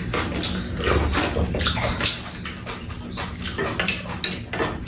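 Close-up eating sounds of two people having noodles and cold soup: wet slurping and chewing in a quick irregular run of short noises, with a few light clicks of spoons and chopsticks on bowls.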